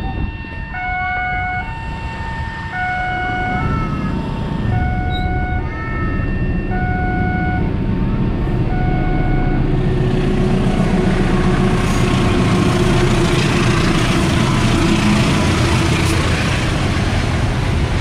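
Level-crossing warning alarm ringing a repeating two-tone electronic chime while the low rumble of an approaching freight train builds. About ten seconds in the train reaches the crossing, and the loud, steady noise of it rolling past drowns out the chime.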